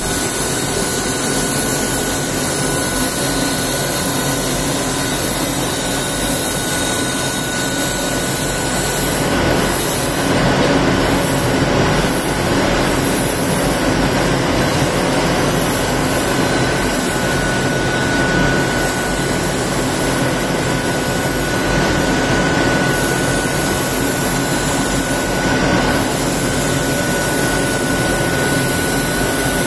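Esko digital flatbed cutting table at work, its tool head travelling along the gantry and cutting lines into a brown board sheet: a steady machine noise with a steady high whistle, swelling slightly a few times.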